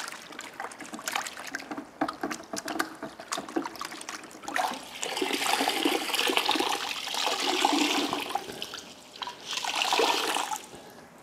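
A chenille wash mitt sloshed about in a bucket of wash water, then lifted and squeezed out. Water pours back into the bucket in two spells, a longer one and then a shorter one.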